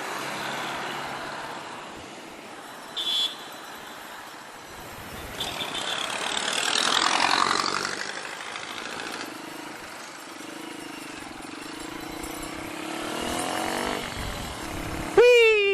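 Street traffic noise, with one vehicle passing close by midway, a brief high beep about three seconds in, and a loud pitched tone near the end that drops in pitch.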